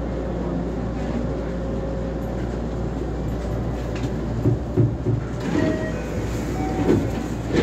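Electric commuter train heard from inside the driver's cab, a steady low running rumble as it comes into the platform. About halfway through, a run of irregular thumps and clunks with a few brief squeaks sets in as the train comes to a stop.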